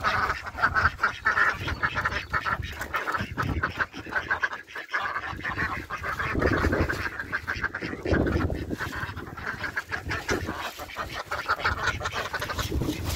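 Flock of Indian Runner ducks quacking: a fast, dense chatter of short overlapping quacks, with a few lower, longer calls about six and eight seconds in.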